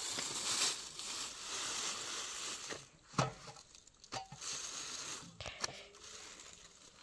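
Clear plastic bag crinkling and rustling as thin flatbread is pulled out of it, loudest in the first three seconds, then a few short knocks.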